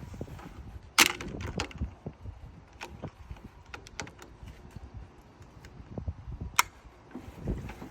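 Hand tools and a metal quick connect fitting clinking and knocking as the new fitting is screwed in and tightened, with a sharp clack about a second in and another a little past six seconds.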